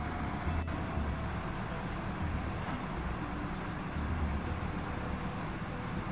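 Steady outdoor rumble of heavy vehicle engines idling, with a faint high whine falling slowly in pitch from about half a second in.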